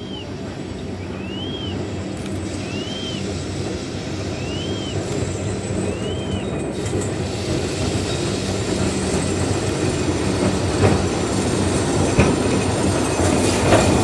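A 600mm-gauge electric mine locomotive hauling a train of coal wagons approaches, growing steadily louder over a low steady hum. A few knocks from the wheels over rail joints come near the end.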